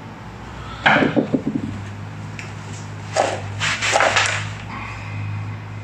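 Hands working on a motorcycle fork part at a workbench. About a second in there is a short metallic clatter, then two short rasping swishes around the three- and four-second marks, over a steady low hum.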